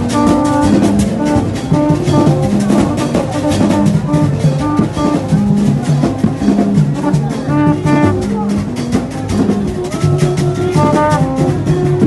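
Music driven by fast, dense drumming, with pitched instruments playing a stepping melody over it.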